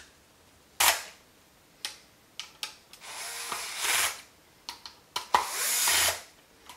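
Cordless drill/driver running screws into an air pump's housing. It starts with short stop-start pulses, then two runs of about a second each, with brief blips between them.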